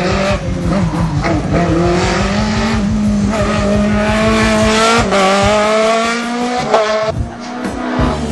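Race car engine revving hard under acceleration: the pitch climbs for about three seconds, drops sharply at a gear change about five seconds in, climbs again, then the throttle comes off near the end.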